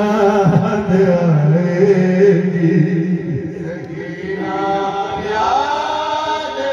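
Male voices chanting a noha, an Urdu mourning lament, through a loudspeaker system in long, drawn-out notes. A first phrase lasts about three seconds, and a second phrase rising in pitch begins about four and a half seconds in.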